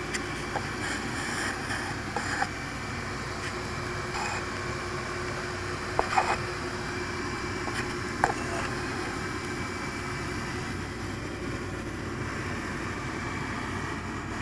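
Steady mechanical hum with a constant low tone and a fainter high tone, consistent with small electric motors running at an even speed, with a few short clicks about six and eight seconds in.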